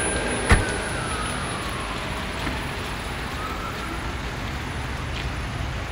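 Steady noise of road traffic on wet roads, with a faint siren wailing in the distance, its pitch slowly rising and falling. A single sharp knock about half a second in.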